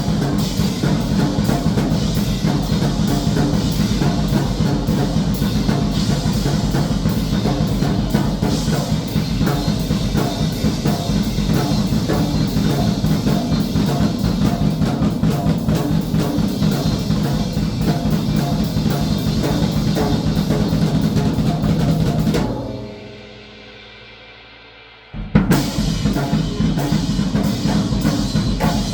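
Drum kit played fast and continuously, with dense rapid strokes. About three-quarters of the way through the playing stops and rings away for a few seconds, then comes back in with a loud hit.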